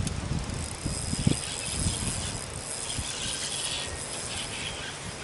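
Spinning fishing reel being cranked to retrieve a lure, a steady mechanical reel sound, with low thumps and rumble in the first two seconds.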